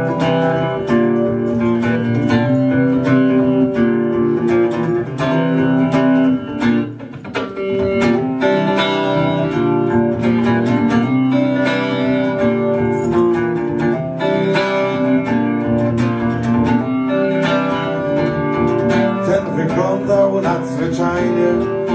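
Solo electric guitar playing the instrumental intro of a song, chords with ringing notes, with a brief drop in level about seven seconds in.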